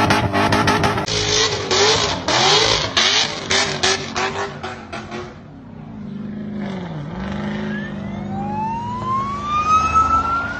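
Car engine revving hard in rapid pulses during a burnout, then running more steadily. A siren wails up in pitch over the last few seconds.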